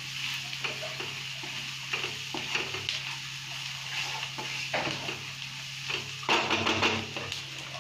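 Onion and spice masala sizzling in a nonstick frying pan while a wooden spatula stirs it, scraping across the pan at irregular moments. The stirring gets louder and busier about six seconds in.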